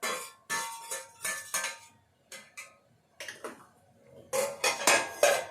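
Metal kitchen utensils clinking and knocking against a cooking pot: a run of sharp clinks, a pause of about a second, then a louder cluster of clinks near the end.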